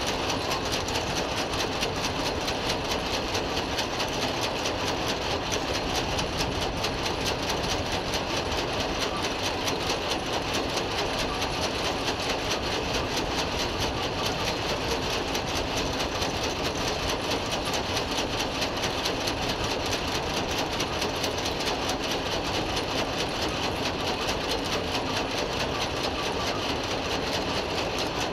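Steady industrial machinery noise: a fast, even rattle over a dense hum, holding one level with no starts or stops.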